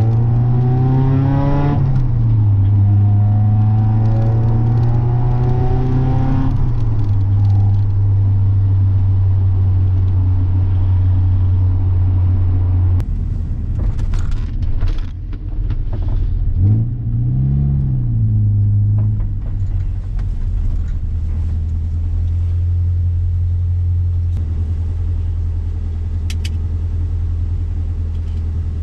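Mazda Miata's four-cylinder engine under way: the revs climb twice with a drop in pitch between, as in an upshift, then it settles to a steady cruise. A little past halfway the revs rise and fall once briefly.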